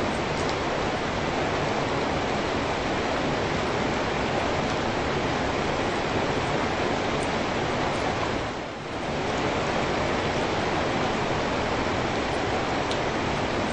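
Steady rain falling, an even hiss, with a brief dip in level about two-thirds of the way through.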